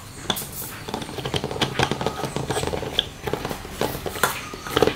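Plastic blade cap being screwed onto a personal blender cup by hand: a run of small irregular clicks, scrapes and knocks of plastic on plastic, with no motor running.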